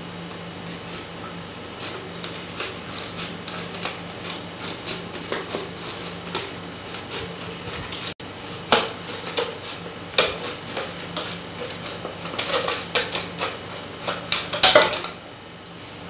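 Scissors snipping through a thin clear plastic bottle: an uneven run of crisp snips and clicks, coming faster and louder in the second half, with the loudest snips just before the end.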